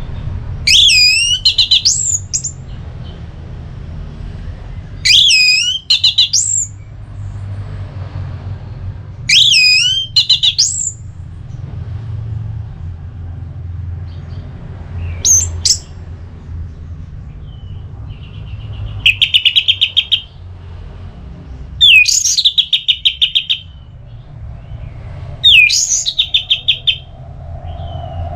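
Orange-headed thrush (anis merah) singing in the full "ngeplong" style: loud, clear whistled phrases repeated every few seconds, the later ones breaking into rapid trills. A steady low hum runs underneath.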